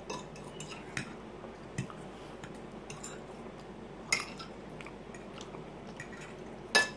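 A metal fork clicking and scraping against a plate a few times, with sharp clinks about four seconds in and again near the end, and soft chewing in between.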